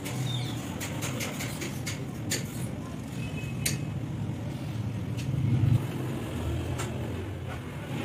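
Tin snips cutting wire mesh: irregular sharp clicks, a few in the first couple of seconds and a few more later. They sit over a steady low engine rumble, which swells a little past the middle.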